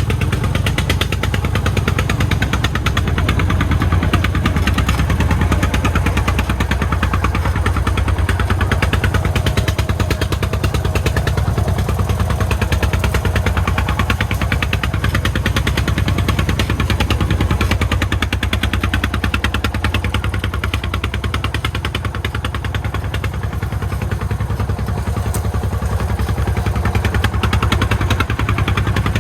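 Single-cylinder diesel engine of a homemade Vietnamese farm truck (công nông) running steadily with a fast, even chugging.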